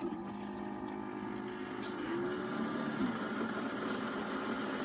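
Keurig single-serve coffee maker starting a brew: its water pump switches on and runs with a steady hum and the rush of water. The pump's pitch wavers briefly about two and three seconds in.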